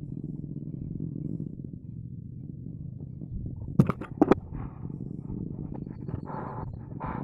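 Two sharp cracks about half a second apart, about four seconds in, the air rifle's shot, over a steady low rumble. Short, fainter sounds follow near the end.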